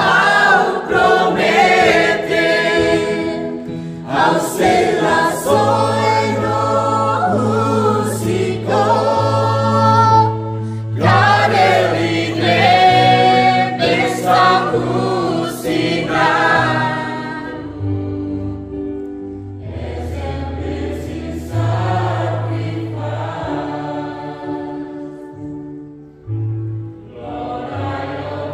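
Church choir singing a hymn over low held accompaniment notes that change from chord to chord; the voices grow thinner and quieter in the second half while the low notes carry on.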